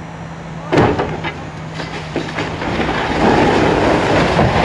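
A sudden loud crack about a second in, then a run of smaller cracks and knocks, and a heavy rumble that builds from about three seconds in: a structure in a demolition giving way and crashing down.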